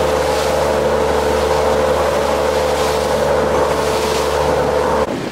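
A motorboat's engine runs steadily at cruising speed, a constant droning hum mixed with the rush of water from the wake. It cuts off suddenly near the end.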